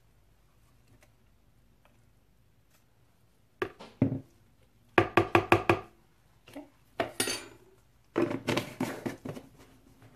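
Light knocks and quick runs of taps, a utensil tapped against a plastic container, starting about three and a half seconds in after a quiet stretch.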